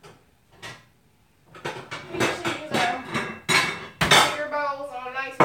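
Dishware bowls clinking and knocking against each other as they are lifted off a cupboard shelf, with a sharper knock about four seconds in.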